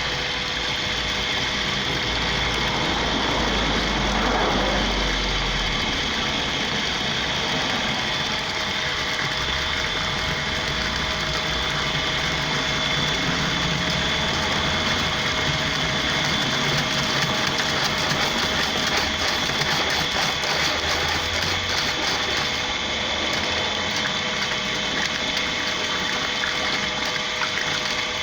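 A motor running steadily with a constant high whine, while a heater core is flushed.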